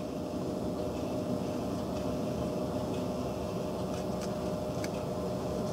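A steady mechanical hum in the room, with a few faint light clicks as the small extractor spring and plunger are worked into the rifle bolt with a metal pick, two of them near the end.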